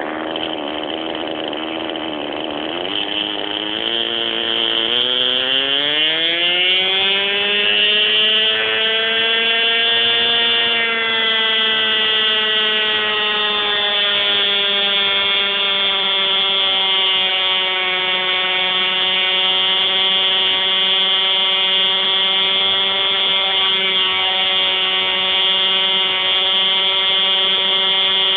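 Hirobo Shuttle radio-controlled helicopter's two-stroke glow engine and rotor head, heard close up from the helicopter's own frame. It runs at low revs, then the pitch rises smoothly over a few seconds from about four seconds in as the throttle comes up. It then holds a steady high note.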